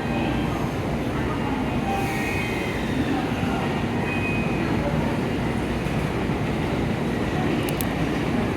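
Shinkansen train moving through the station, a steady rumble of wheels and running gear with a few faint whining tones.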